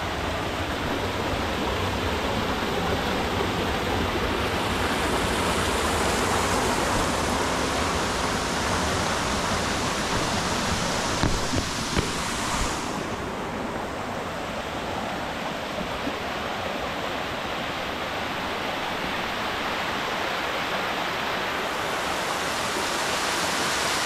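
Mountain stream rushing and splashing down over rocks in small cascades, a loud steady rush of water. The rush changes about halfway through, losing some of its hiss.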